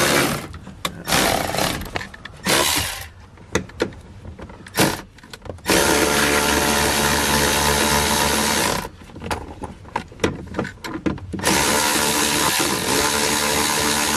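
Milwaukee cordless power tool driving the harness bar's lower mounting bolt. It gives a few short blips, then runs steadily twice for about three seconds each.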